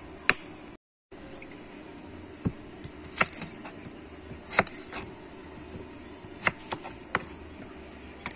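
Several sharp, irregular clicks and knocks over a steady low background noise, with a short gap of total silence about a second in.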